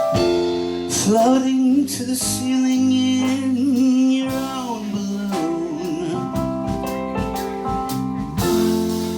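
A live band playing the opening of a song: guitar and percussion under a held, wavering melody line.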